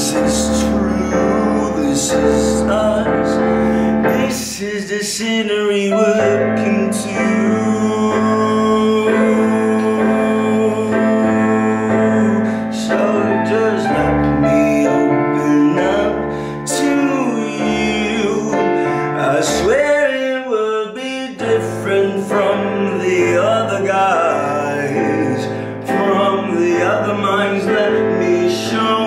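Music from an original song: sustained keyboard chords over a bass line, with sharp rhythmic hits and a wavering lead line that bends in pitch now and then.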